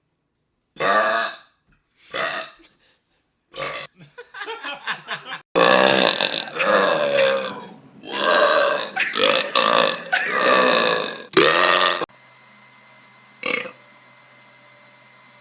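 People belching loudly in a string of separate burps. There are three short belches in the first four seconds, then a quick run of small ones, then long, wavering belches for about six seconds, and one last short belch near the end.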